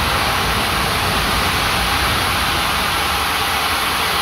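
Steam locomotive 45596 Bahamas, an LMS Jubilee class 4-6-0, releasing steam in a loud, steady hiss with a low rumble underneath.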